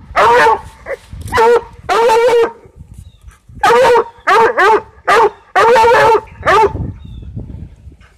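Coonhound baying at a cat it is chasing: about ten loud, pitched bawls and barks, several of them drawn out, stopping about seven seconds in.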